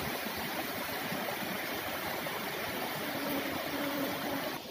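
Shallow, rocky stream flowing over stones: a steady wash of running water.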